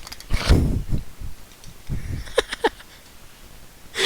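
A person making a few short, high whimpering squeaks, acting nervous and shaky, after a loud breathy rush of noise about half a second in.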